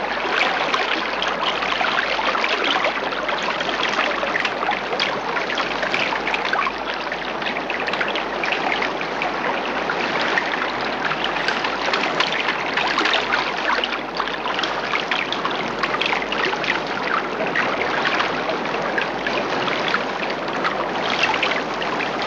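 Steady babbling of running water, like a stream, with a constant fine crackle and no breaks.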